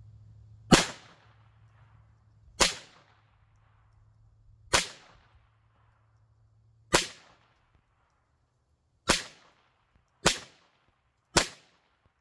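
Browning Buck Mark .22 rimfire semi-automatic pistol firing seven sharp shots, the first four about two seconds apart, then three quicker ones about a second apart.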